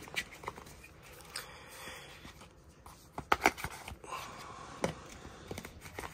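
Cardboard box and paper packaging being handled, with scattered clicks, taps and light scrapes. The sharpest taps come about three and a half seconds in and again near five seconds.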